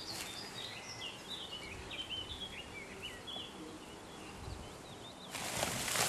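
A small songbird singing a quick run of short chirps over a faint outdoor background. About five seconds in, a dry rustling starts as cut grass is stuffed into a plastic bulk bag.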